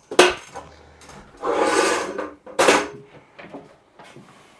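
Handling noises from a truck-bed tonneau cover being worked into place: a sharp knock, a scraping slide of just under a second, another knock, then a few light taps.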